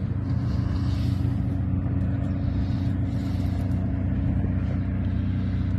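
A steady low motor hum, an even drone that does not change.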